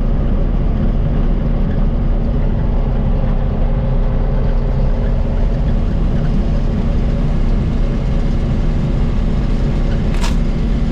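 Engine of harvest machinery running steadily, a constant low hum, with one brief sharp click near the end.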